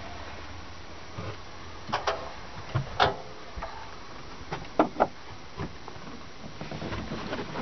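Knocks and clicks of someone moving through a small wooden boat cabin. There are a pair about two seconds in, a louder one a second later and another pair near the five-second mark, over a faint low hum.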